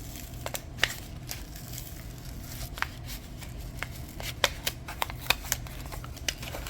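Clear craft stamp sheets and their plastic packaging being handled: irregular light clicks and crinkles, with a few sharper clicks in the second half.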